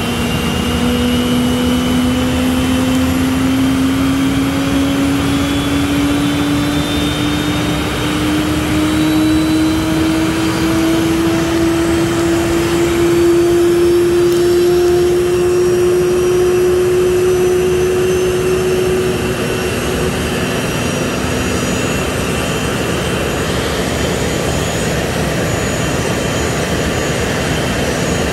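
Business jet turbofan engines running: a whine climbs slowly in pitch over a steady loud rush, then fades and gives way to a steadier, lower whine near the end.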